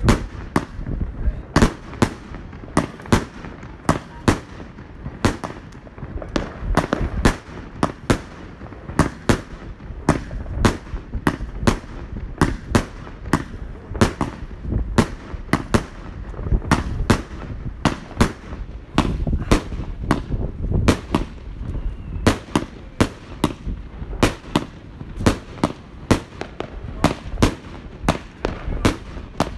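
Consumer fireworks battery (cake) firing shot after shot: a rapid, uneven string of sharp bangs, about two a second, from the tubes launching and the shells bursting overhead.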